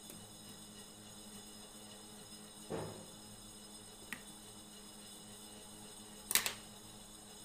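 Light knocks and a click of small wooden pieces being handled and fitted together on a workbench, the loudest a quick double knock near the end, over a steady hum.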